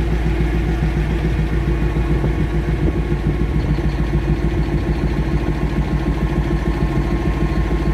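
Caterpillar 988F2 wheel loader's diesel engine idling steadily during an injector cut-out test, run to find a leaking injector.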